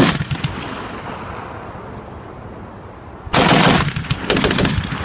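Bursts of fire from an M2 .50-calibre heavy machine gun: one burst ends just after the start and another comes about three seconds in. Each is loud, with echoing after it.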